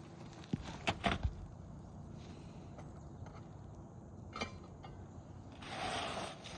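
Work noises on an asphalt shingle roof as a replacement shingle is worked into place: a few sharp knocks about a second in, a single click later, then a longer scraping rustle near the end.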